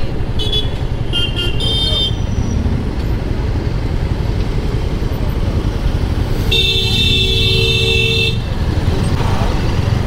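Vehicle horns honking in traffic: a few short, high-pitched toots in the first two seconds, then one long blast of nearly two seconds past the middle. Underneath is the steady low rumble of wind and road noise from a moving motorcycle.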